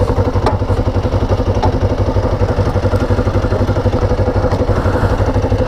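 Kawasaki Ninja 500's parallel-twin engine idling steadily in neutral, a regular low pulse.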